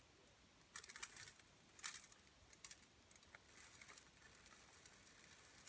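Faint pattering on a pan set on the floor, recorded as a rain sound effect: a couple of short spatters about one and two seconds in, then a lighter, steadier patter.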